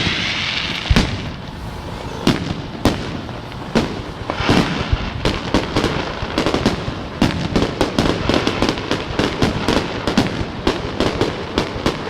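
Fireworks display: scattered sharp bangs with a hissing burst about four and a half seconds in, then from about seven seconds a dense barrage of rapid crackling bangs.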